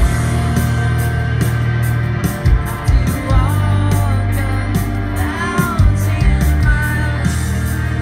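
Rock band playing live: electric guitars, bass and drums with cymbal strokes, and a male voice singing a couple of lines partway through. Heard from the crowd through a phone's microphone.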